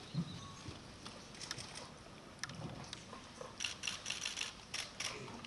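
Camera shutters clicking here and there, some in quick runs of several clicks, over a faint low room murmur.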